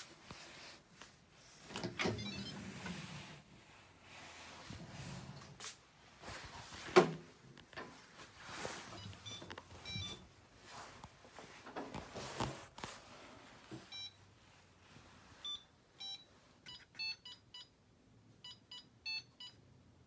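Fisher & Paykel DishDrawer dishwasher drawer being pulled open, with knocks and rattles of the drawer and racks and one sharp knock about seven seconds in. Then its touch control panel beeps a string of short electronic beeps as the wash cycle is selected.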